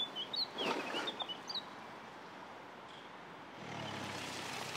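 Birds chirping over the rough crunch of an SUV's tyres rolling on a dirt track in the first second and a half. From about three and a half seconds in, the low sound of the Mercedes-Benz GLC 300's engine grows louder as it approaches.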